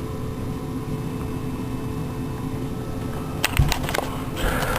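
Steady indoor hum, with a quick cluster of sharp clicks and a dull knock about three and a half seconds in.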